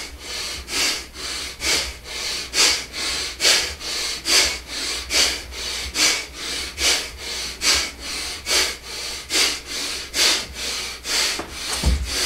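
Rapid, forceful rhythmic breathing in dynamic breathwork, with strokes about two to two and a half a second that sound like sawing. A low thump comes near the end.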